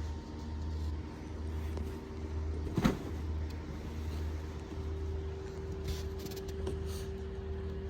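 A steady low hum with a faint steady tone above it, and a single sharp knock or thump about three seconds in.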